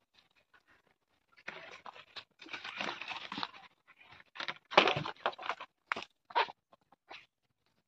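Irregular rustling and crunching as a bundled nylon gill net is carried and handled, with a sharper, louder burst about five seconds in.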